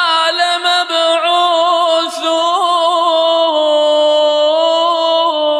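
A male Quran reciter's voice chanting in melodic tajwid style, drawing out one long, lightly ornamented note. The pitch steps down slightly about three and a half seconds in, and the note ends near the close.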